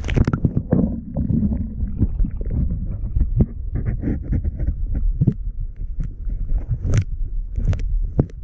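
Muffled underwater rumbling and gurgling of shallow lake water, heard through an action camera's waterproof housing held submerged, with many small knocks and a few sharp clicks near the end.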